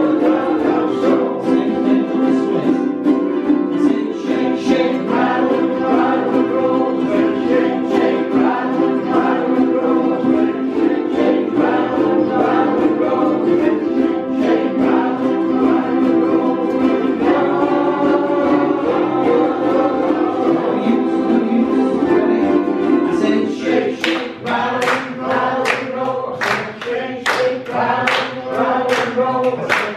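Group of ukuleles strumming while the players sing together in a rock and roll number. About 23 seconds in the strumming drops away, leaving group singing over steady rhythmic hand claps.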